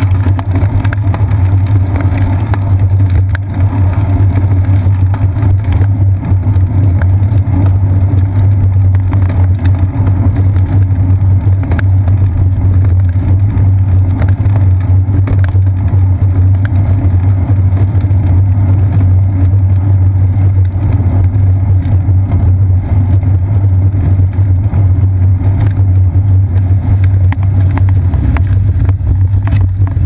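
Steady low rumble of wind and road vibration picked up by a GoPro Hero 2 mounted on a bicycle's seat post while riding, with a few sharp ticks.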